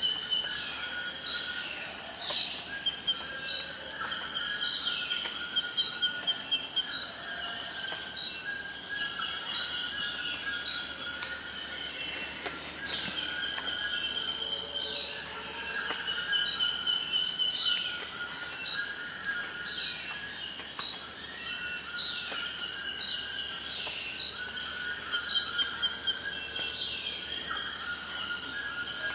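Tropical forest chorus: a steady, high-pitched insect drone with many birds calling over it in short, repeated, falling notes.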